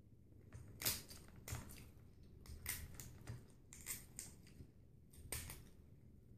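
Cooked crab shell being cracked and broken apart by hand or teeth: a series of sharp cracks and crunches, irregular, about seven over five seconds.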